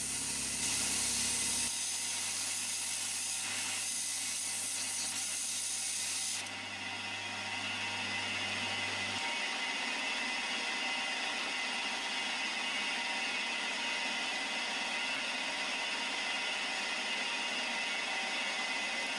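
Milling machine cutting a slot with a four-flute end mill, under the steady hiss of a light compressed-air jet blowing the chips out of the cut. The hiss drops a little about six seconds in, and everything cuts off suddenly at the very end.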